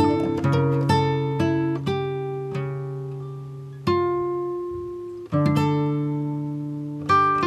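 Background instrumental music of plucked and strummed guitar, chords ringing out and fading, with new strums about four seconds in, again about five seconds in, and near the end.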